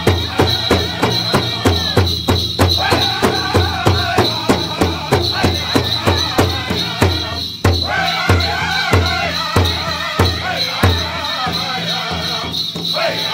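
Powwow drum group performing a chicken dance song: a steady drumbeat of about three beats a second under group singing. The drumming drops out for a moment a little past halfway, then picks up again.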